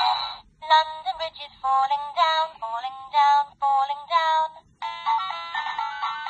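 VTech Baby Nursery Rhymes book playing through its small, tinny speaker. A tune ends just after the start, the toy's recorded voice follows for about four seconds, and an electronic melody of clear held notes begins about five seconds in.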